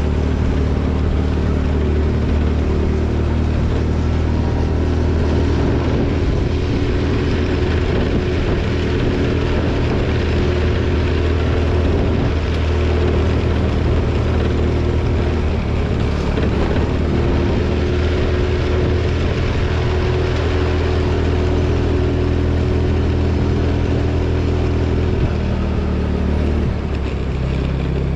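TVS Jupiter scooter engine running steadily while riding, mixed with a constant rush of wind and road noise. Its note shifts a little in pitch as the throttle changes, and it eases off near the end.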